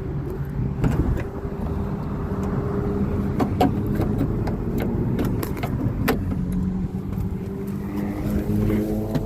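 Car engine running at idle after being started on a newly replaced fuel pump: a steady low hum with scattered sharp clicks.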